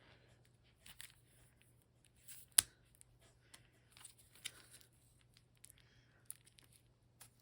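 Board game components being handled: paper and card rustling with scattered small clicks, and one sharp click about two and a half seconds in. A faint steady low hum runs underneath.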